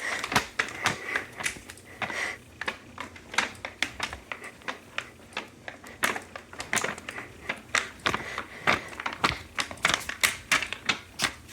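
Irregular sharp clicks and taps, a few a second, like small hard objects being handled.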